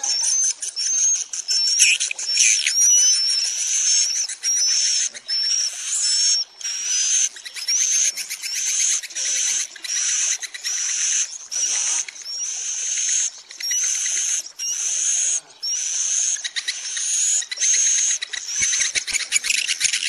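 Swiftlets chirping and twittering in a dense, continuous chorus: high-pitched rising chirps repeating about twice a second over busy twittering. This is a swiftlet calling recording of the kind played to lure the birds to roost in a nesting house.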